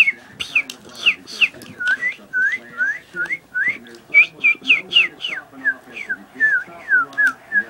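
A rapid string of short whistled chirps, about three a second, some sliding down in pitch and some sliding up, with a fainter low sound underneath.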